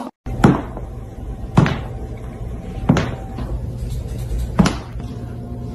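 Four loud thumps, spaced unevenly a second or more apart, over a steady low hum.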